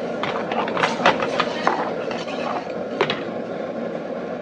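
Steel ladle stirring and scraping through a thick masala gravy in a metal kadai, with a few sharp clinks of the ladle against the pan, the clearest about a second in and again near three seconds, over a steady background hiss.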